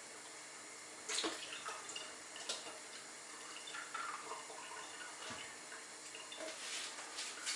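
Pork and vegetables stewing in their own juices under the lid of a kazan on a gas burner: a steady watery bubbling hiss, with a few sharp clicks, the loudest about a second in.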